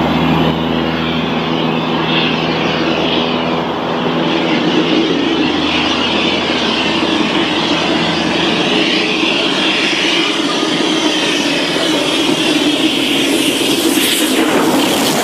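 A diesel multiple unit's engines hum steadily at first and fade within the first few seconds, while LMS Royal Scot class three-cylinder 4-6-0 steam locomotive 46115 Scots Guardsman approaches at speed with a strange high-pitched steam noise. It passes close near the end, its wheels clattering over the rail joints.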